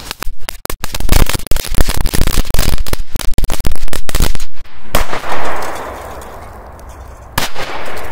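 Firecrackers going off in tin drink cans: a rapid, irregular string of loud bangs for about five seconds, then a heavier bang with a short fading tail, and one more single bang near the end.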